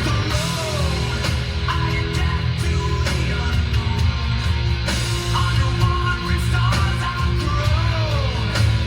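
Rock music with guitar playing through the 2016 Montero Sport GLS Premium's factory car audio system, with heavy, steady bass.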